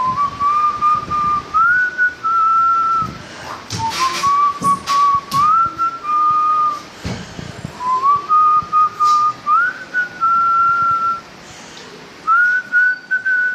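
A person whistling a tune: clear held notes stepping up and down, in phrases with short breaks between them. A few sharp clicks or knocks come through about four to five seconds in and again near seven seconds.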